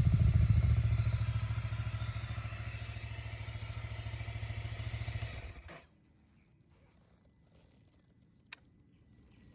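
Ducati Scrambler Full Throttle's 803 cc L-twin idling through its Termignoni exhaust, getting gradually quieter, then cut off suddenly a little under six seconds in. One sharp click near the end.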